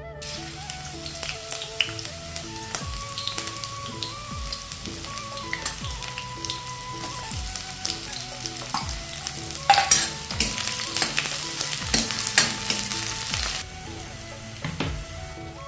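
Food sizzling and frying in hot oil in a pan while it is stirred, with a spatula scraping and clicking against the pan. The sizzling eases off near the end.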